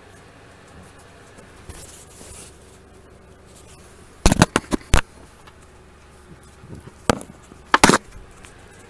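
A faint scraping rustle, then a quick cluster of sharp knocks about four seconds in and two more knocks near the end, from hard objects bumping together.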